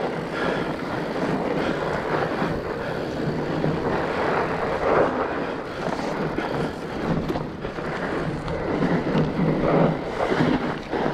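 Fat bike riding along a frozen forest trail: tyres rolling over the ground and drivetrain noise, with wind buffeting the microphone.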